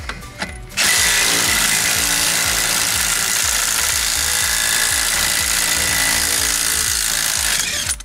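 Cordless impact wrench hammering on a VW Beetle's rear axle nut. It starts abruptly about a second in, runs steadily for about seven seconds, and stops just before the end.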